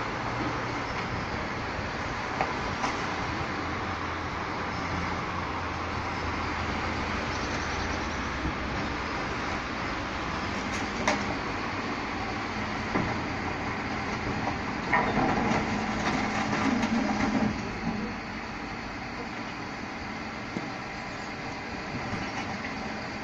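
Rotopress rotating-drum rear-loader garbage truck running while bulky waste is loaded, a steady low machine hum under occasional sharp knocks. About fifteen seconds in, a louder and busier stretch of noise lasts a couple of seconds.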